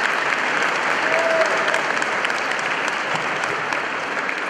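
Audience applauding, a dense patter of many hands clapping that eases slightly near the end.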